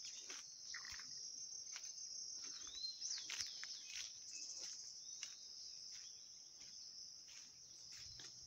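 Steady high-pitched drone of insects, with faint footsteps on a dirt road and a brief bird chirp about three seconds in.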